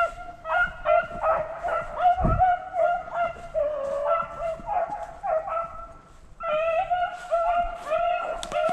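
A pack of beagles baying on a rabbit's trail: a run of short, pitched bawls and yips overlapping from several dogs, easing off briefly past the middle and then picking up again.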